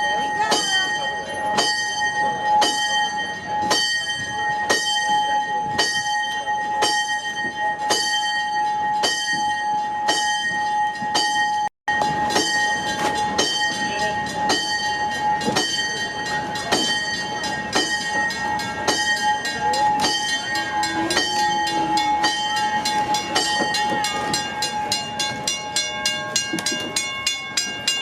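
Small tourist train on the move behind a General Electric diesel locomotive, its bell ringing over and over at about one and a half strokes a second with a lasting ring. The regular strokes come faster for the last few seconds.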